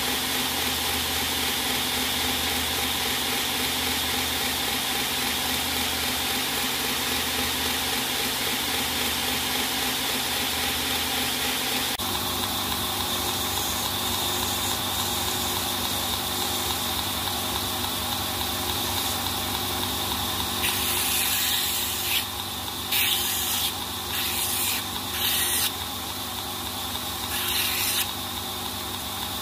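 Belt grinder motor and belt running steadily. Its running note changes abruptly about twelve seconds in, where the belt has been swapped. In the second half, about six short bursts of grinding hiss come as the titanium pocket clip is pressed to the belt over the small wheel.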